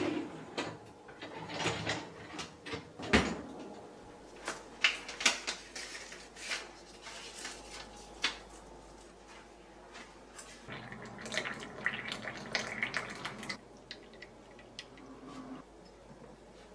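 Kitchen handling sounds: dishes and a dishwasher rack clinking and knocking, with sharp clicks, then a steady run of something like pouring water for about two seconds, followed by light taps of a glass teapot and its lid.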